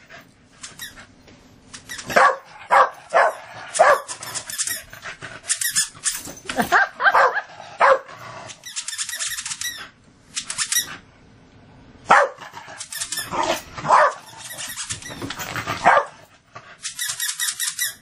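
A beagle-basset hound puppy barking and letting out high yips and squeals in excited play, in short bursts that come in clusters, with a couple of brief lulls.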